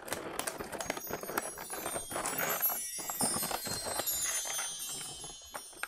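Clear plastic blister packaging crackling and clicking as a model locomotive is worked out of it by hand, with a shimmering chime-like sound of many high ringing tones from about a second in until near the end.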